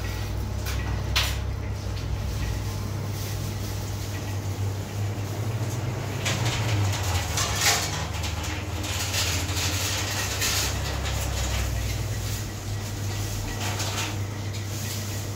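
Steady low hum of restaurant kitchen equipment, with scattered clatter and a few short bursts of noise over it.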